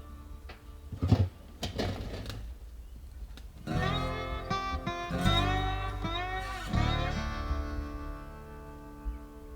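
Background guitar music: plucked notes, with bending slide-guitar phrases in the middle, in a blues-country style.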